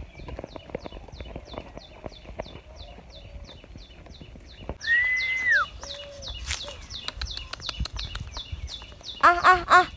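Birds calling: a steady run of high chirps about three a second, one long whistled note about five seconds in that drops off at its end, and three short loud calls near the end. Footsteps crunch on a dirt path in between.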